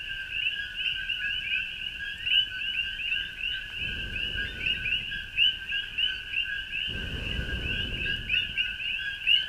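Dense night chorus of frogs, many short chirping calls overlapping every second. Twice, for a second or so, a low rustling as the campfire is tended.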